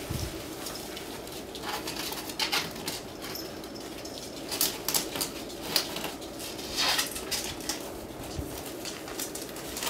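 Scattered rustles, taps and scrabbling as a kitten pounces on and bats at a cardboard tube stuffed with tissue, with a steady low hum underneath.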